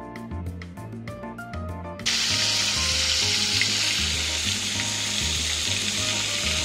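Background music with a repeating bass line. About two seconds in, loud sizzling and bubbling of batter-coated shrimp tempura deep-frying in hot oil cuts in suddenly, with the music continuing underneath.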